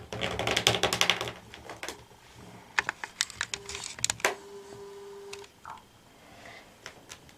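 Plastic lid of a small tarantula enclosure being worked and pressed down: a quick run of rattling clicks, then a few separate snaps and clicks. The lid is warped and will not shut properly.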